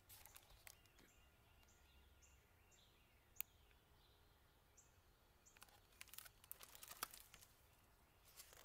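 Near silence, with faint high bird chirps several times in the first half. In the last few seconds come soft rustles and clicks of a picture book's pages being handled.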